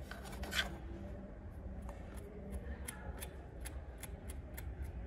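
Bare end of a wire tapped and scraped against the metal of a tractor tail lamp to test for current: a run of faint light ticks, about three a second, starting about a second and a half in. No spark comes, a sign that no current is reaching the lamp there.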